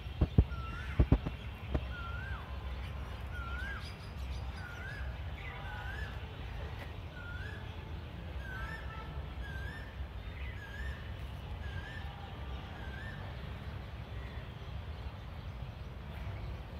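A bird calling a short rising-and-falling note over and over, about once a second, until near the end, with a second bird twittering faintly higher partway through. Under it runs a steady low rumble of outdoor background noise, and a few sharp knocks come in the first two seconds.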